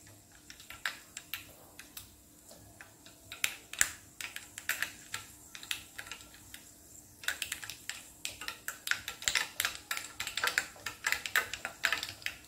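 Mustard seeds popping in hot oil in a small steel pan: irregular sharp crackles, scattered at first, then coming thick and fast from about seven seconds in. This is the mustard spluttering, the first stage of a tadka (tempering).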